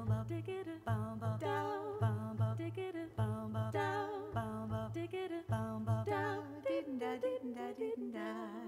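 Music with a singing voice: a vocal melody with a pronounced vibrato over a low note that pulses on and off about once a second.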